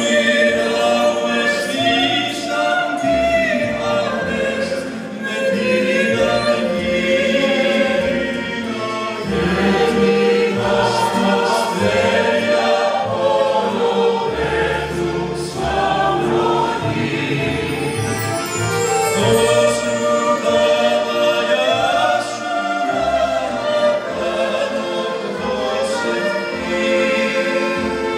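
A mixed choir singing, accompanied by a mandolin orchestra of mandolins and guitars.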